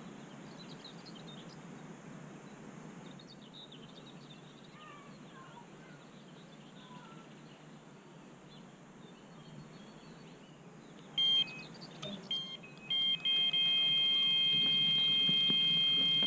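Faint outdoor ambience with a few bird chirps, then late on an electronic carp bite alarm sounds. It gives a few short high beeps, then a continuous tone as line is pulled steadily through it: a carp has taken the bait and is running.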